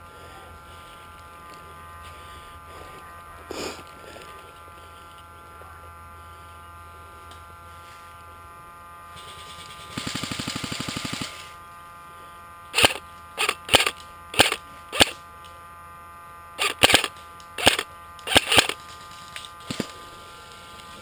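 Airsoft electric gun firing one full-auto burst of about a second and a half, its motor whirring under a fast even rattle of shots. About a second later come some ten sharp single shots spread over the next six seconds.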